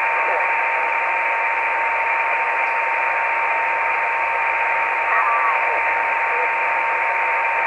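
Hiss from a Yaesu FT-817 receiver on the HAMSAT VO-52 satellite downlink, with a constant whistle tone near 1 kHz running through it. Faint wavering snatches of other signals come through about five seconds in.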